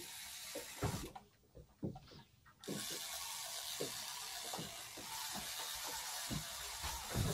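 Fishing reel being wound to bring in a hooked fish on a bent rod, its mechanism clicking in an even rhythm of about two to three ticks a second. A steady hiss comes in about three seconds in.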